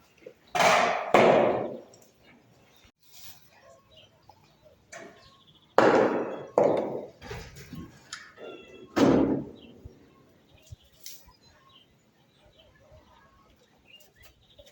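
A handful of loud thuds or knocks at irregular intervals, each trailing off over about half a second.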